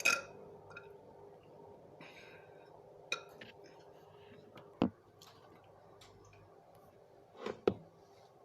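A few short, separate mouth sounds from a person eating: brief wet smacks and clicks, one at the start, one about three seconds in, a louder one near five seconds and a quick double one near the end, over a faint steady hum.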